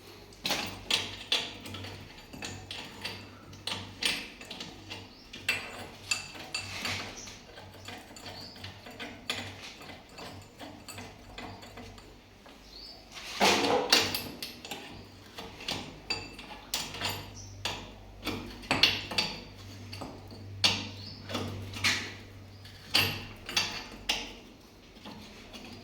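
Irregular metallic knocks and clinks, as tools and metal valve parts strike one another, with a louder burst of clattering about halfway through. A steady low hum runs underneath.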